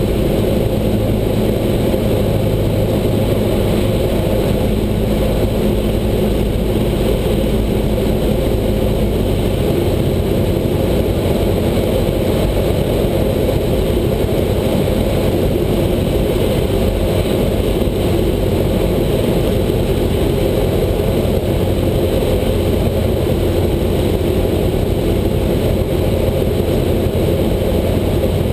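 Cessna 172's piston engine and propeller running steadily, heard from inside the cabin as the plane descends toward the runway; the low engine tone shifts slightly about nine seconds in.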